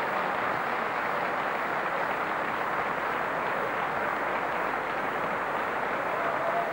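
Sustained applause from a crowd of many hands clapping, steady throughout.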